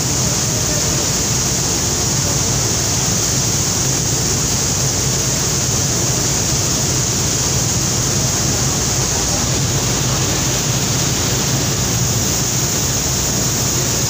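Steady rush of river water churned to foam by a passenger launch's propellers, over the low, even drone of its engine.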